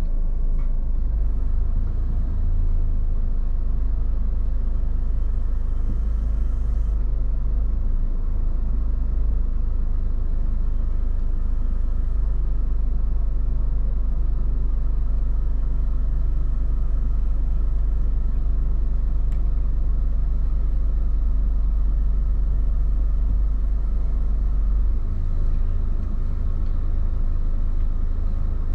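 Steady low rumble of a 2004 Honda Accord heard inside its own cabin, the engine idling as the car waits and creeps slowly forward.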